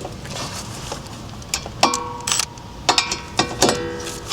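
Metal tools clinking on a wheel hub bolt: a string of sharp metallic clinks, a few of them ringing briefly, as a socket tapped onto a rounded bolt is worked with a wrench.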